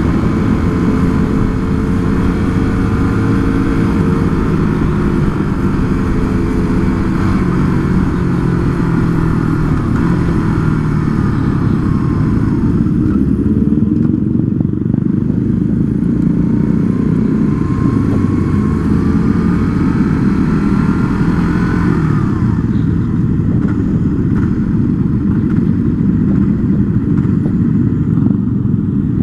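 Motorcycle engine heard from the rider's own bike while riding, with wind noise on the microphone. The engine note falls, rises again about two-thirds of the way through, then drops as the bike slows to a low run with less wind near the end.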